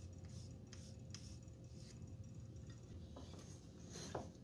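Faint scratchy strokes of a pencil drawing on a wooden block, marking out the outline of a plane tote's grip. A few light knocks follow, and there is a sharp click near the end.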